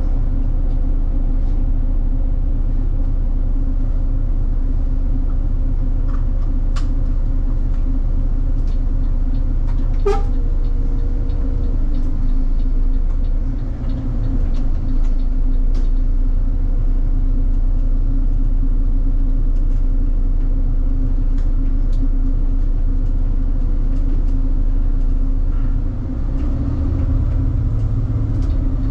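City bus engine running with a steady low drone and hum, with scattered light clicks and rattles. About ten seconds in, a short falling squeal settles into a held tone for a second or two.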